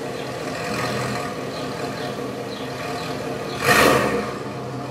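Lowered pickup truck's V8 with a loud aftermarket exhaust, rumbling at low speed as the truck is driven slowly. About three-quarters of the way through there is one brief, loud blip of throttle.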